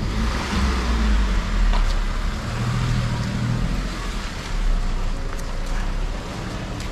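Street traffic noise: car engines running, with a steady low rumble and an engine hum that swells briefly around the middle.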